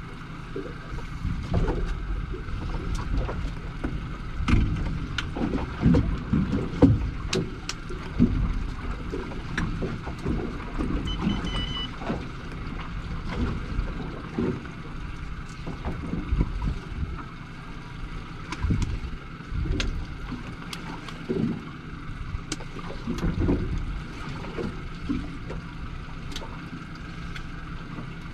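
Boat at sea drifting: irregular low buffeting of wind on the microphone and water against the hull, with scattered small clicks and knocks. A short faint high beep sounds about eleven seconds in.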